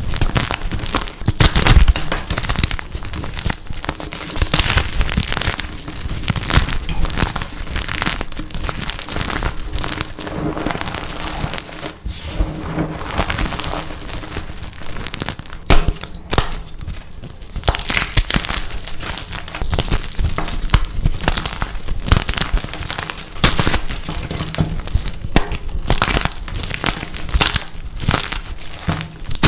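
Blocks of dyed gym chalk being crushed, giving a dense, irregular crunching and crumbling crackle with one sharp, louder crack about halfway through.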